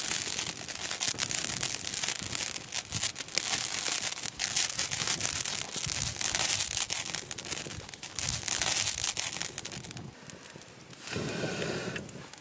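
Crushed castor seeds boiling hard in water in a clay pot over a wood fire, the froth bubbling and popping with a dense crackling hiss; this boiling is the stage that frees the oil from the seed mash. The crackle eases off about ten seconds in.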